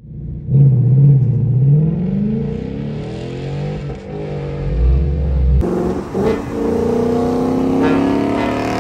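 2022 Ford Mustang Mach 1's 5.0 L V8, breathing through an aftermarket Steeda mid-pipe that replaces the factory resonator, revving up as the car accelerates. It pulls twice, with a short lull between; the second pull climbs steadily in pitch.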